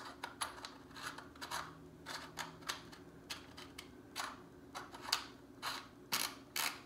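Remington Versa Max magazine cap nut being screwed by hand onto the magazine tube, a run of short scraping clicks about three a second as it turns on the threads, getting louder from about four seconds in.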